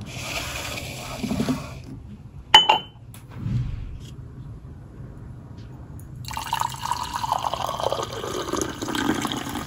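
Liquid poured into a glass: a short pour, a sharp glass clink about two and a half seconds in, then a longer pour from about six seconds in.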